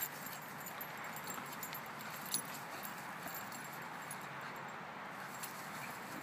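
Beagle playing with another dog: scattered light clicks over a steady hiss, with one sharper click a little past two seconds in. No barking.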